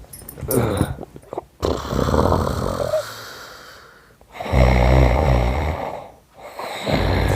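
A man's deliberately faked snoring: long, rough, rattling snores, the loudest in the middle and another starting near the end.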